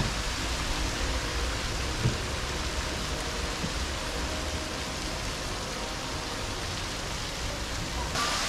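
Steady rush of falling water from an artificial rock waterfall and its stream, with a short thump about two seconds in.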